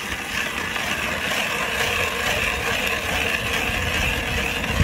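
Ice auger boring quickly through lake ice: a steady grinding of the blades cutting into the ice.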